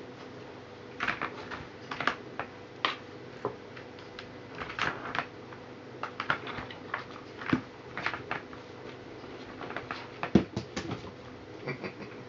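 Kittens batting the ball around a plastic circular track toy: irregular light clicks and clatters, with the loudest knock about ten seconds in.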